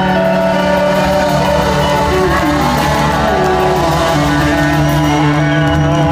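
Live rock band playing, amplified electric guitars and bass sustaining long held notes.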